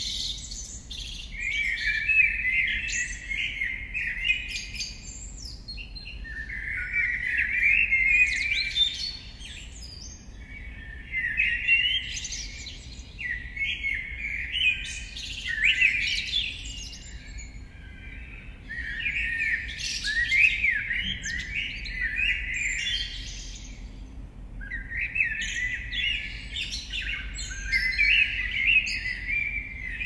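A songbird singing its dawn song in busy, warbling phrases of two to three seconds, one roughly every four to five seconds. A faint, steady low hum runs underneath.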